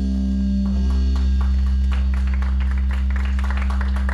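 Live rock band playing: drum kit, electric guitar and bass. Low guitar and bass notes ring under the whole stretch, and the drums come in just under a second in with a steady run of hits that grows busier.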